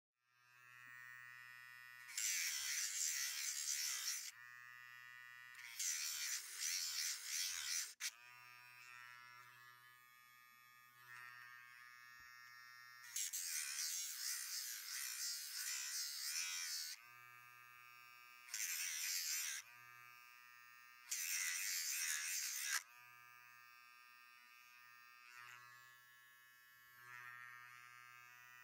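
Rechargeable pet nail drill running with a steady electric whine. About six times it gets louder and hissier for one to four seconds as the spinning grinding bit is pressed against a dog's toenails.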